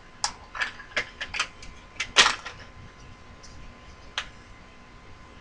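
Irregular light metal clicks and clinks from small hand tools being handled, about ten in the first two and a half seconds and one more a little past four seconds.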